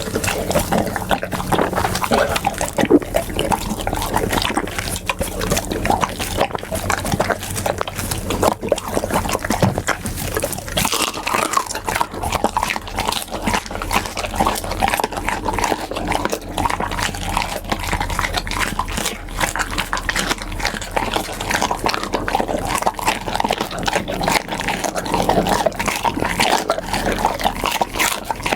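Pit bull eating, chewing and smacking its food close to the microphone: a dense, unbroken run of crunches and mouth clicks.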